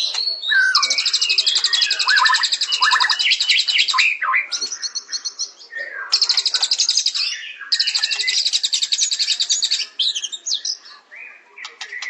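Songbirds singing: repeated long, fast, high trills, each lasting one to three seconds, over overlapping varied chirps and whistled notes, thinning to scattered notes near the end.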